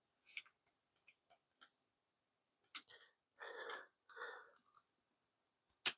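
Small sharp clicks and ticks of an M.2 NVMe SSD being handled and pushed into its slot on a laptop motherboard, with one louder click about three seconds in.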